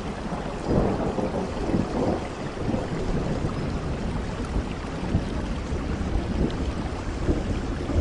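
Heavy rain falling steadily, with a low rumble of thunder underneath that swells about a second in.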